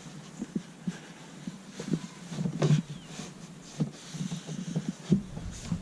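Scattered small clicks and knocks from hands working the downrigger power plugs and breaker switches at a boat's battery box, over a steady low hum. A low rumble comes in near the end.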